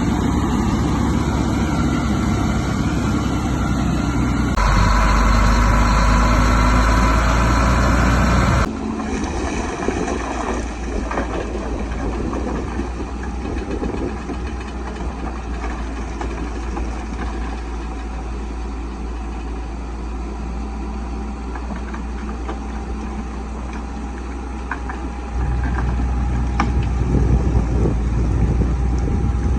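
Caterpillar bulldozer's diesel engine running steadily, with a few faint clanks. The sound changes abruptly about four and a half seconds in, again about eight and a half seconds in, and near the end.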